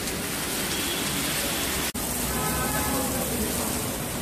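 Steady rushing hiss of a pressurised water jet from a fire hose branch pipe, with a momentary dropout about two seconds in.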